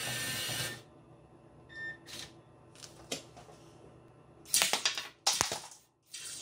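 Plastic LEGO Mindstorms MVP robot mechanism clicking and clattering as it moves, with a few scattered clicks and then a loud cluster of sharp clicks and rattles about four and a half to five and a half seconds in.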